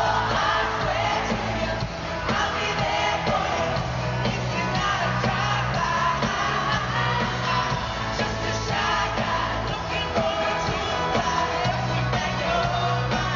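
Live pop-rock song played by a full band over an arena PA, with a male and a female singer singing together, heard from among the audience, with fans yelling and whooping over it.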